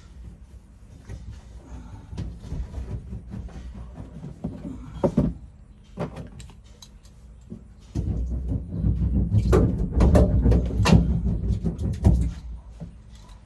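A sound-deadening panel being worked by hand into a body cavity of a Ford E-150 van: rubbing, scraping and knocking against the sheet metal. The handling comes in two bouts, a quieter one a couple of seconds in and a louder, busier one with sharp knocks in the second half.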